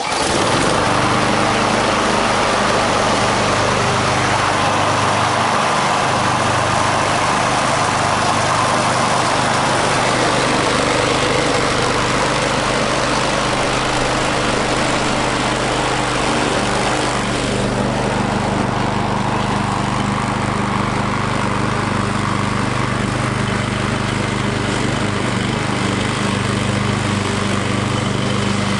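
Walk-behind rotary lawn mower's small gasoline engine running steadily at full throttle while mowing grass. The sound turns duller about two-thirds of the way in.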